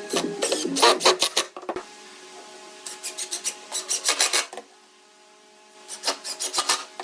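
Quick back-and-forth scraping strokes of a hand tool abrading wood, about five or six strokes a second, in three bursts with short pauses between them.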